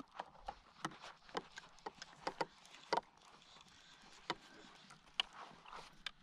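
Irregular light clicks and knocks of fishing gear and a paddle being handled against the plastic hull of a fishing kayak, coming a few a second at first and thinning out after about three seconds.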